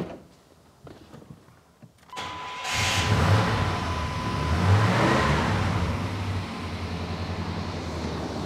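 1992 Chevrolet pickup's 5.0-litre V8 cranked and started about two seconds in. It revs up briefly, then settles to a steady idle on newly fitted spark plugs and plug wires.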